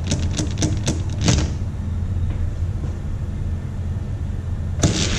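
Light plastic clicks and taps of die-cast toy cars being set against the start gate of an orange plastic Hot Wheels track, a quick run of them in the first second and a half, over a steady low hum. Near the end a sharp snap as the gate is released, followed by the even rolling hiss of the cars starting down the plastic track.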